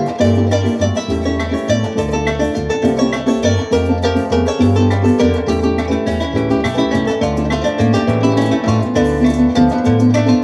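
Instrumental introduction of a llanera song: a harp plays a fast plucked melody over a stepping bass line, with a fast, even percussive rhythm running through it.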